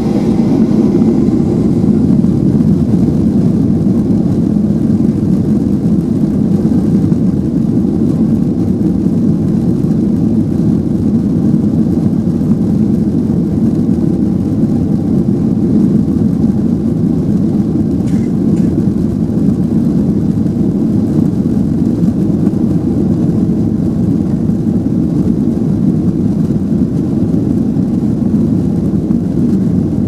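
Jet airliner's engines at takeoff power, a steady loud roar with a deep rumble heard inside the cabin, as the plane accelerates down the runway on its takeoff roll.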